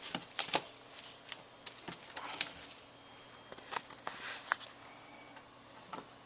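RagaMuffin kittens at play: scattered light taps, clicks and scrabbling of paws and claws, with a few soft rustles.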